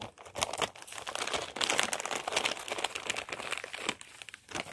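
Dense, irregular crinkling and crackling, many quick crackles close together, easing off near the end.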